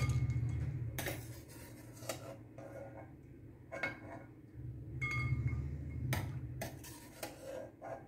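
Steel spoon clinking and scraping against a non-stick pan and a glass bowl as soft rasgullas are lifted out of syrup and set into ice water: about ten light, separate clinks. A low hum sounds in the first second and again a little past the middle.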